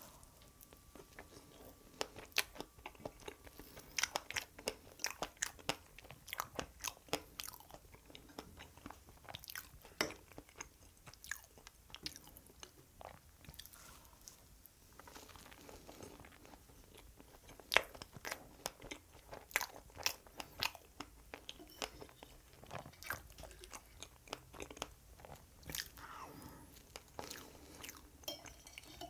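A person chewing and biting strawberry cake, with fresh strawberries on a dense brownie-like chocolate base: irregular wet clicks, smacks and crunches.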